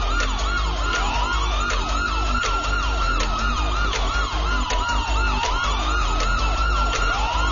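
Call-in quiz show background music that cuts in abruptly: an electronic track of rapid falling synth chirps, about four a second, under long siren-like sweeps that rise and fall, over a pulsing low beat.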